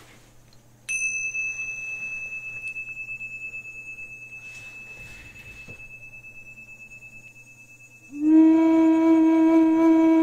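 Tibetan tingsha bells struck once, a bright high ring that fades slowly over about seven seconds. About eight seconds in, a flute begins a loud, held low note.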